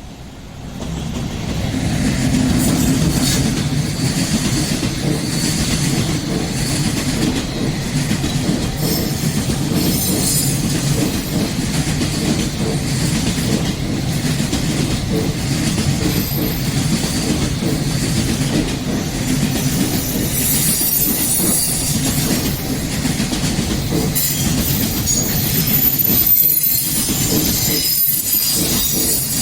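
Railway train passing close by for nearly half a minute, its wheels clattering rhythmically over the rail joints, with some wheel squeal. The sound swells about a second in and stays loud until the very end.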